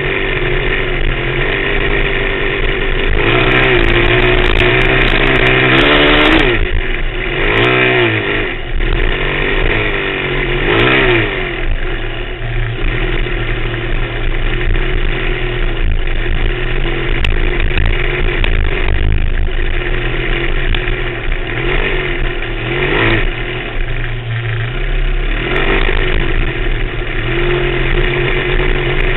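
Off-road vehicle engine running hard while driving over sand, revving up and down repeatedly as the throttle is worked, with the sharpest swings in pitch in the first third.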